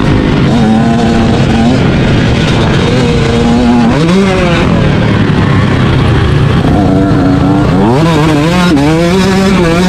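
Dirt bike engine heard from on the bike, its pitch rising and falling again and again with the throttle, with a quick climb in revs about eight seconds in.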